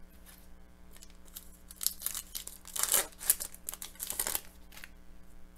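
A shiny hockey card pack wrapper being torn open by hand and crinkled, in about three short crackly bursts around two, three and four seconds in.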